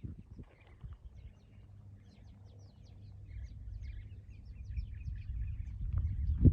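Many small birds chirping in quick, short notes over a low rumble, with a loud low thump near the end.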